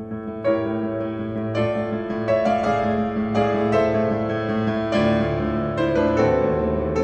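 Piano music: single notes and chords struck every half second to a second over held low notes.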